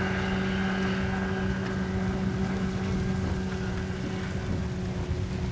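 A motorboat's outboard engine running at a steady pitch, its higher whine fading out over the first second or two, with wind rumbling on the microphone.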